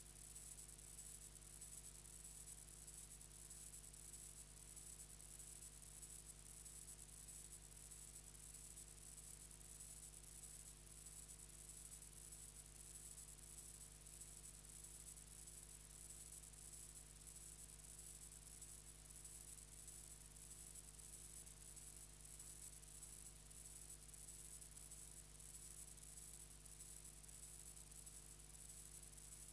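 Near silence: an empty soundtrack with only a faint steady hiss and low hum.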